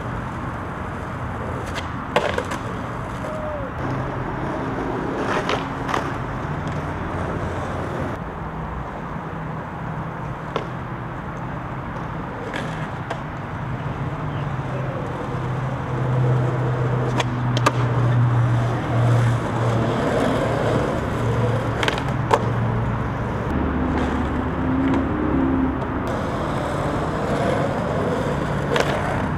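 Skateboard wheels rolling on pavement, with a handful of sharp clacks of the board popping and landing.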